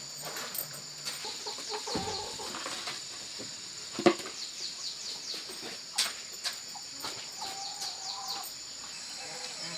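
Chickens clucking, with a short call near the end, over a steady high-pitched insect drone. Scattered small clicks and knocks run throughout, the sharpest about four seconds in.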